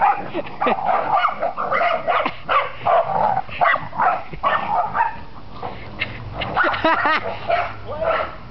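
Several dogs barking in rough play, short barks coming in quick, irregular succession.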